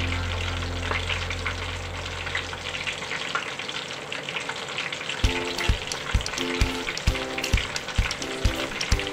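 Whole fried fish sizzling and crackling in hot oil in a pan, a steady hiss with small pops. Background music runs underneath: a low held note fades out over the first few seconds, then a beat of regular thumps comes in about five seconds in.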